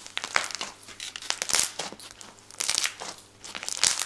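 Orange slime heaped with gold and silver glitter being pressed and kneaded by hand, giving crackly, crunchy squishes in about five irregular bursts.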